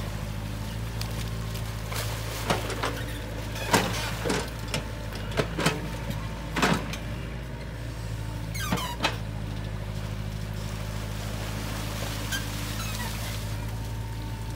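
Compact crawler excavator's diesel engine running steadily while it digs in wet mud. A run of sharp knocks and clunks comes from the working bucket and arm between about two and nine seconds in.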